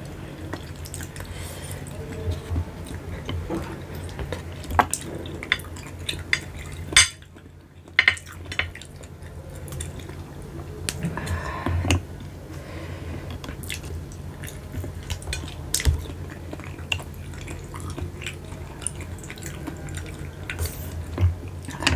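Hard shells of spiced tiger snails giving irregular sharp clicks and taps as they are handled and picked at with the fingers over a bowl of sauce, with occasional wet, saucy sounds and a little chewing. A steady low hum runs underneath.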